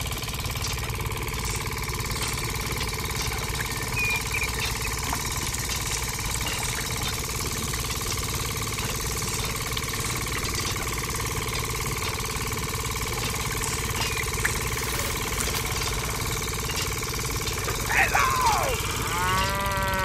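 Small motor running steadily with a fast low pulsing, belt-driving a miniature sugarcane-crushing roller press as cane is fed through. Near the end, a brief sliding voice-like call cuts in over the motor.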